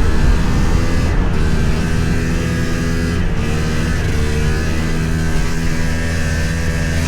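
1997 Yamaha VMax 500 snowmobile's two-stroke twin running under way on the trail, its engine note fairly steady with slight rises and falls in pitch. The owner says the sled is not running to its true potential and suspects the carburetor jetting or the clutch.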